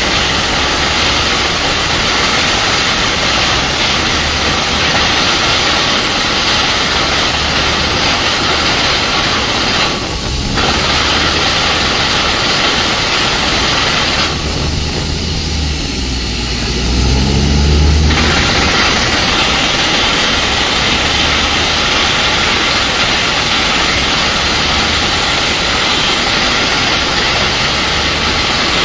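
Truck-mounted water well drilling rig running under test: a loud steady hiss over the low drone of its diesel engine and air compressor. About halfway through, the hiss drops out for a few seconds while the engine note rises, then the hiss returns.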